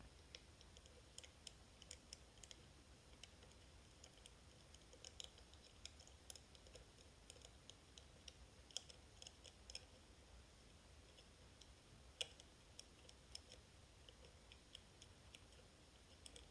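Faint, irregular small clicks from a lock pick working the free-floating magnetic tumblers of a Miracle Magnetic lock, heard through a contact microphone on the vise; the clicks are the magnets catching as they set under tension, with one sharper click about twelve seconds in.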